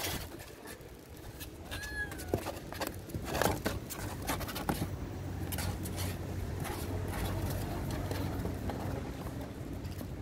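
Scratching and knocking inside a cardboard box as a kitten moves about in it, with a short high call about two seconds in and a steady low hum from about halfway.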